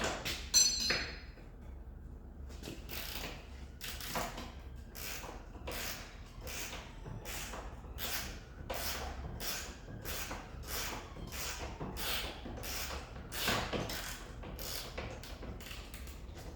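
A metallic clink with a brief ring, then a hand tool worked steadily on metal in even back-and-forth strokes, about two a second, as parts are undone from the car's front end.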